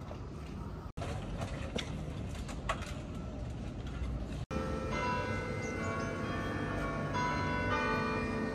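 Bells ringing in several held, overlapping notes from about five seconds in, over a steady low rumble. Before that, a few sharp knocks and clatter, with the sound cutting out for an instant twice.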